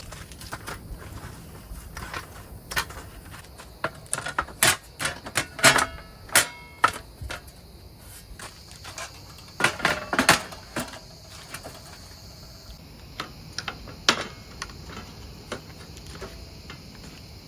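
Irregular clicks, knocks and light clatter of hard objects being handled, bunched about four to seven seconds in and again around ten seconds, a few with a short metallic ring. A steady high insect drone, like crickets, runs beneath.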